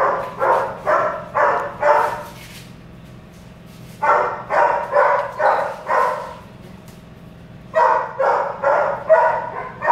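A dog barking in three runs of about five barks each, roughly two barks a second, with short pauses between the runs.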